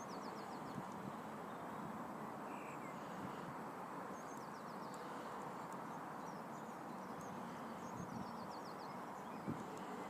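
A small songbird singing a short phrase of several quick, high, falling notes three times, about four seconds apart, over a steady outdoor background hiss.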